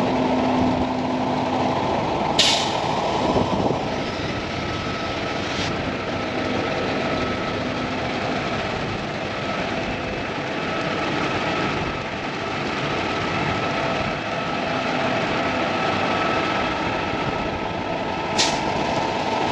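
Concrete mixer truck running steadily while its drum dumps out the washout water. Two short sharp hisses of air break in, about two seconds in and again near the end.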